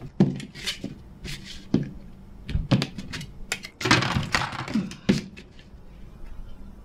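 Drafting tools handled on paper on a desk: a plastic set square and ruler knocked and set down in a string of short clicks, with a pencil scratching along the ruler's edge about four seconds in.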